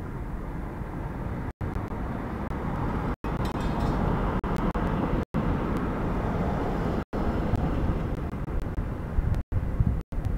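Low, steady rumble of street traffic heard through a security camera's microphone, swelling in the middle as a vehicle passes, with the audio cutting out for an instant about six times.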